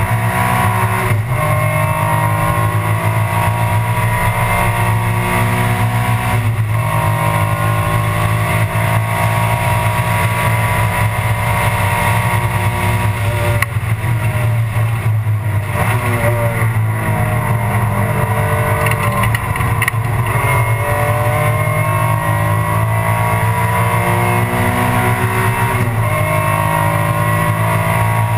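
Alfa Romeo 156 GTA race car's engine heard from inside the cockpit, running hard under acceleration. Its pitch climbs through the gears, with upshifts about 1 and 6 seconds in. About halfway through the pitch falls away as the car brakes and downshifts, then climbs again with two more upshifts near the end.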